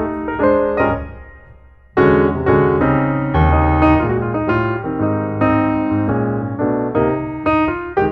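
Background piano music. The notes die away about a second in, and a fuller passage begins sharply about two seconds in.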